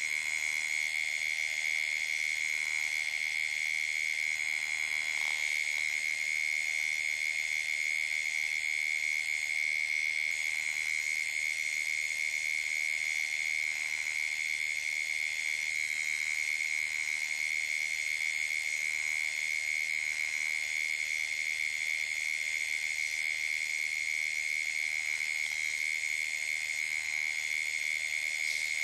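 Steady night chorus of calling insects: one shrill high tone with many fainter, higher trills above it.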